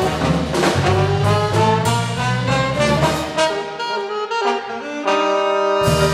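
Alto saxophone and trombone playing a jazz line together over the big band's rhythm section. About three and a half seconds in the drums and low end drop out, leaving the horns, and near the end the whole band comes in on a long held chord.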